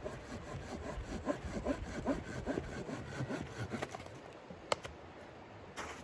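Hand saw cutting wood, rhythmic back-and-forth strokes at about two to three a second, stopping after about four seconds. Then a sharp click, and another near the end.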